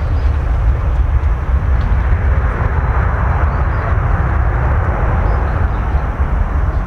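Boeing 737-800's CFM56-7B turbofan engines running at takeoff power as the airliner departs, a steady jet rumble that swells around the middle and eases off toward the end.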